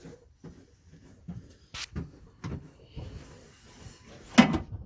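Scattered light knocks and scrapes of hand tools and parts being handled during clean-up and prep of the engine block deck, with one louder clunk near the end.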